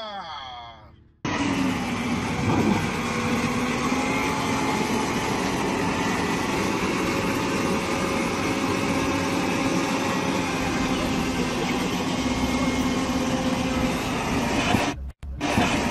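Heavy diesel engine running steadily with a low hum, as a truck-mounted crane hoists a dump truck. It comes in abruptly after a short, falling-pitched sound about a second in, and cuts out briefly near the end.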